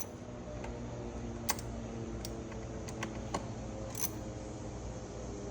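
A handful of light, sharp clicks and taps, spaced irregularly, as cold air intake parts are handled and fitted together, over a steady low hum.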